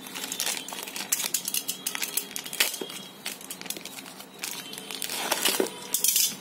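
A plastic postal mailer bag crinkling and rustling irregularly as hands open it and pull out a wrapped box, a little louder near the end.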